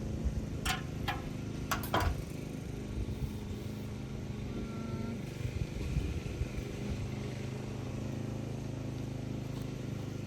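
A small engine running steadily at an even speed, with a few sharp knocks in the first two seconds.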